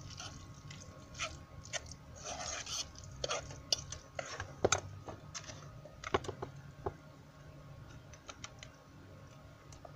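A spoon scraping and clinking against a cooking pot and a glass bowl while tuna pasta is scooped between them: a scatter of light scrapes and clicks, busier in the first half. A faint steady hum runs underneath.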